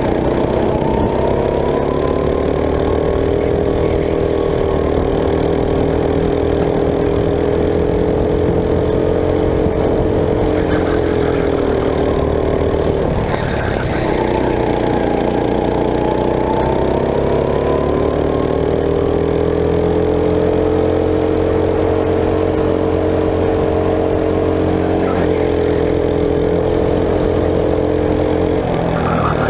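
Go-kart engine running on track, its pitch rising and falling with the revs. About halfway through the revs drop sharply as the kart slows, then climb steadily again.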